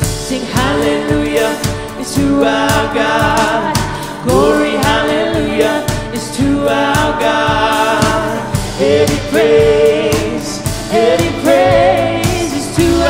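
A live worship band playing and singing: voices over acoustic guitar, keyboard, bass guitar and a drum kit keeping a steady beat.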